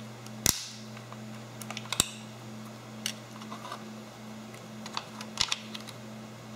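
A handful of sharp clicks and taps of small plastic and metal parts being handled with fingers and a screwdriver at a moped's battery and fuse compartment, the loudest about half a second and two seconds in, over a low steady hum.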